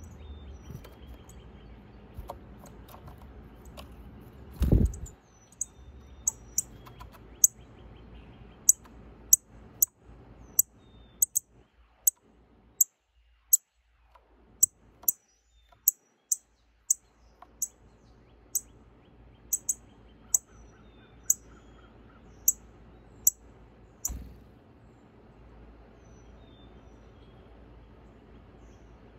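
Northern cardinal landing on the wooden rail with a thump about five seconds in, then giving a long series of short, sharp, high chip notes, about one or two a second, and leaving with another thump near the end.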